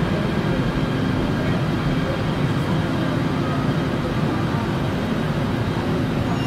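Seoul subway train running past the platform: a steady low rumble.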